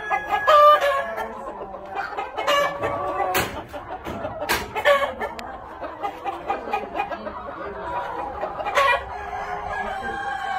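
A flock of Lavender Orpington chickens clucking and calling, many birds overlapping. A few sharp clicks stand out, about a third and halfway through and again near the end.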